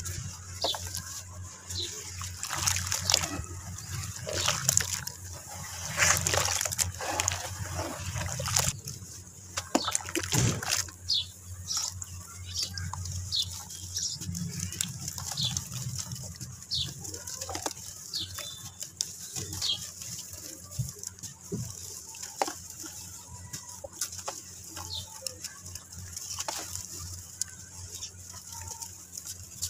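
Soft lumps of red dirt crumbling and squishing in wet hands in a basin of water, with irregular gritty crackles, splashes and drips.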